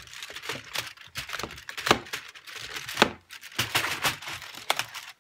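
Cardboard Milkybar advent calendar being handled and a chocolate worked out of it: crinkling and tearing card with a run of sharp cracks and knocks. The loudest come about two and three seconds in.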